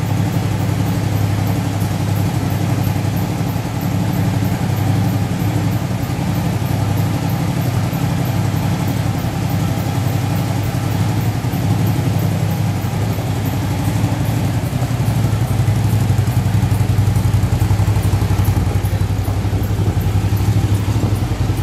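Touring motorcycle engine running steadily at low speed as the bike rolls at walking pace in an enclosed corridor, with its landing-gear wheels lowered.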